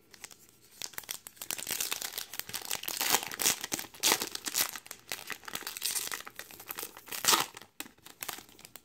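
Foil wrapper of a Topps baseball card pack crinkling and tearing as it is pulled open by hand. It goes as a run of crackles starting about a second in, with the sharpest ones near the middle and near the end.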